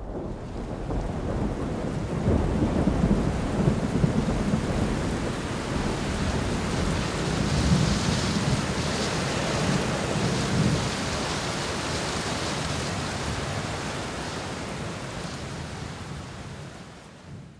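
Steady rain falling, with low rolling rumbles of thunder; the storm sound fades out near the end.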